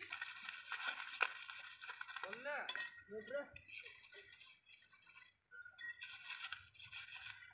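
A wad of dry grass scrubbing a perforated metal skimmer: faint scratchy rubbing with light clinks of metal. Faint voices in the background around the middle.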